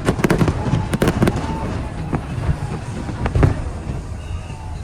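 Fireworks going off in rapid bangs and crackles, densest in the first second or so, with another heavy bang about three and a half seconds in, over a steady low rumble of the display.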